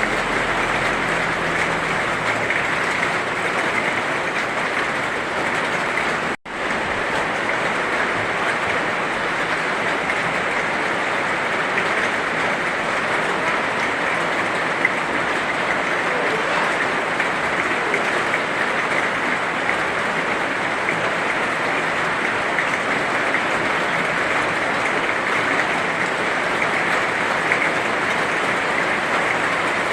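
Heavy rain falling as a steady, dense hiss, with a split-second gap about six seconds in.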